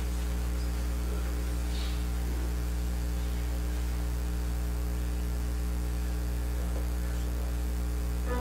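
Steady low electrical mains hum, with a faint brief click about two seconds in.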